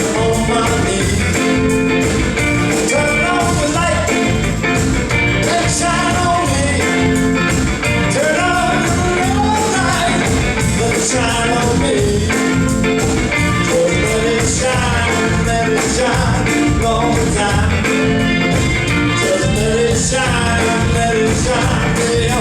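Live rock-and-roll band playing with a steady beat of drums and bass under a wandering lead melody line.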